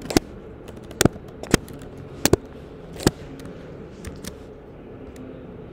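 Computer keyboard keystrokes: a handful of separate, sharp key clicks spaced roughly a second apart, with a quick double click a little past two seconds in.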